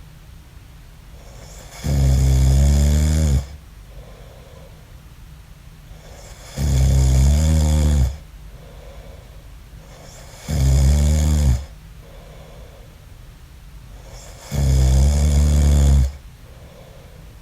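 A man snoring in his sleep: four loud, low snores, each lasting about a second to a second and a half and coming roughly every four seconds, with faint breaths between them.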